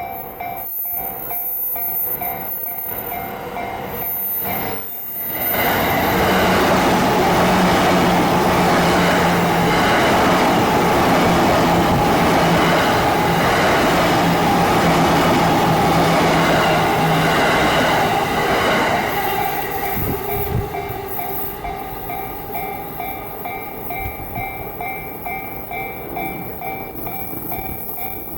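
JR Yamanote Line E235 series electric train passing over a level crossing, loud for about thirteen seconds with a steady low hum, then fading away. A level-crossing warning bell rings steadily before the train arrives and again after it has gone.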